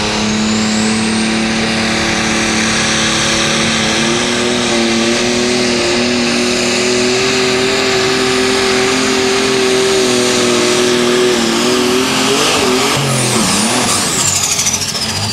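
Turbocharged super stock pulling tractor's diesel engine running hard under load, its pitch stepping up about four seconds in and holding steady, with a high turbo whine climbing at the start. Near the end the engine note wavers and drops, and the turbo whine falls away as the throttle comes off at the end of the pull.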